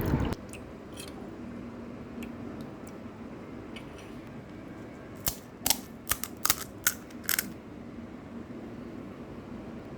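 Crisp fried fuchka (pani puri) shells crunching in a quick run of about eight sharp cracks near the middle, over a steady low hum.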